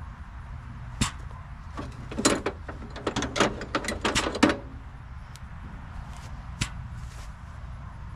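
Metal clicks and clinks from a steel round-baler spring and hand tools being handled. There is one click about a second in, then a quick irregular run of clicks from about two to four and a half seconds, and another click later, over a steady low rumble.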